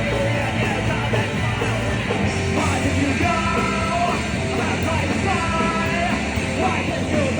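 A live punk rock band playing, with a singer shouting and holding long sung notes over the band.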